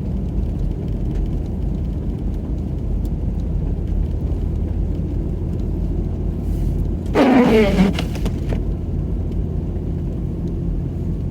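Steady low rumble of a car driving on a snow-covered road, heard from inside the cabin. About seven seconds in comes a brief, louder sound that falls in pitch.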